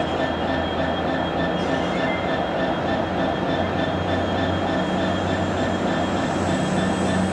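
Class 66 diesel-electric locomotive passing slowly, its EMD two-stroke V12 engine running with a steady low drone over the noise of its wheels on the rails. A faint high whine rises gradually near the end.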